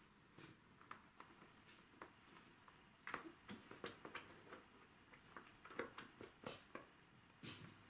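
A cat clawing, biting and kicking at a plush fish toy on carpet: faint, irregular scratching and rustling of claws and teeth on fabric, sparse at first and busier from about three seconds in.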